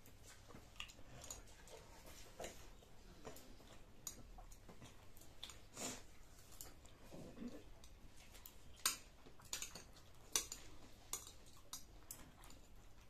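Eating sounds: a fork and metal chopsticks clicking and scraping against plates while noodles and fried egg are chewed, with two louder clicks a little past the middle.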